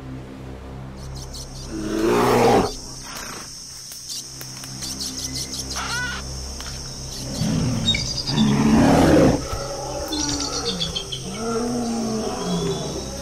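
Wild animal calls layered over a steady low drone. There is a roar about two seconds in and a longer, louder one in the middle, short chirping calls between them, and wavering calls near the end.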